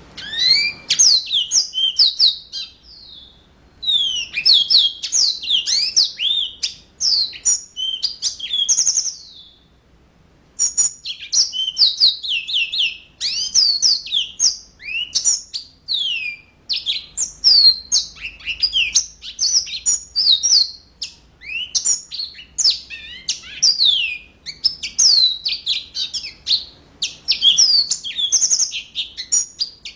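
Yellow-fronted canary (Mozambique canary) singing in full, continuous song: a fast run of high chirps, slurs and trills, with short pauses about three seconds in and near ten seconds.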